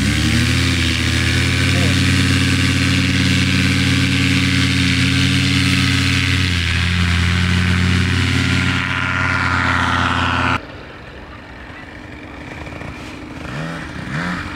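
Paramotor engine running hard at a steady pitch after a brief rise in revs at the start, then stopping abruptly about ten and a half seconds in.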